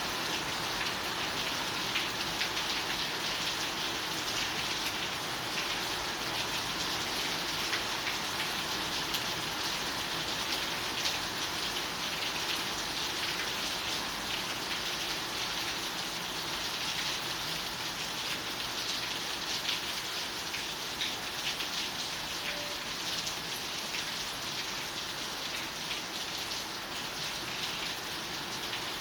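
Steady rain falling: a dense, even hiss with many small drop ticks scattered through it.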